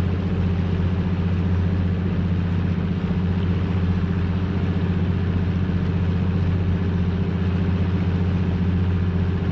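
Outboard motor of a bass boat running steadily at cruising speed, an even drone that holds the same pitch throughout, over a rush of wind and water.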